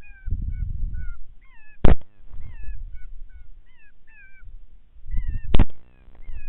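Two rifle shots, about two seconds and then five and a half seconds in, over a running series of short, high, wavering coyote yips and whimpers.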